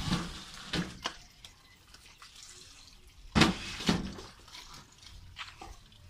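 A few sharp knocks and clicks over a faint hiss, the loudest two about half a second apart, some three and a half seconds in.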